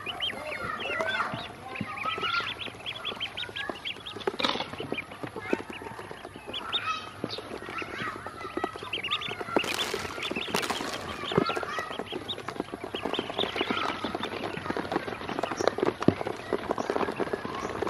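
Ducklings peeping in many quick, overlapping high chirps, with light clicks and taps of bills and feet on a plastic basin as they peck up scattered feed.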